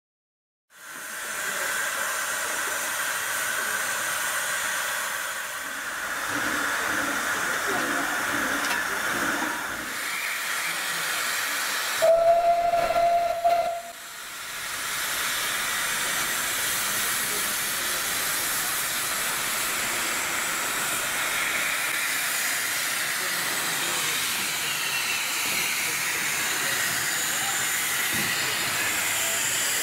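Narrow-gauge steam locomotive hissing steadily as it stands. About twelve seconds in it gives one short whistle blast of about a second and a half, the loudest sound.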